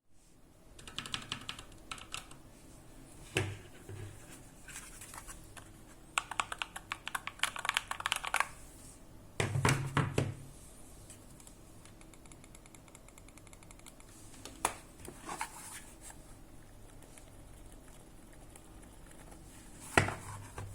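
Typing on a Micro Journal's mechanical keyboard switches, in several short bursts of rapid keystrokes with pauses between them. About halfway through comes a heavier knock with a deeper thud.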